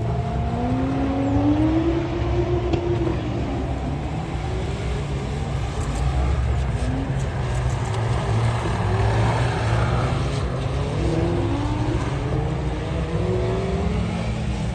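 Car engine revving hard during a timed gymkhana run, its pitch rising and falling again and again as the car accelerates and brakes between pylons, over a steady low rumble.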